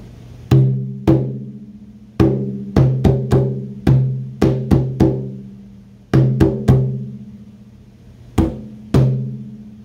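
A drum struck by hand, playing four short practice rhythms of quarter notes, eighth-note pairs and quarter rests back to back: about fifteen sharp hits in uneven groups with gaps for the rests, each leaving a short low ring.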